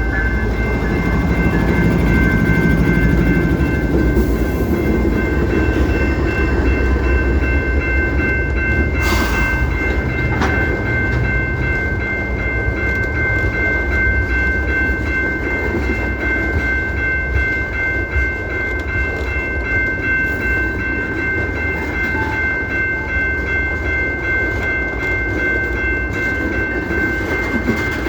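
Train rolling by: a steady low rumble under a sustained high-pitched ringing tone, with two sharp knocks about nine and ten seconds in.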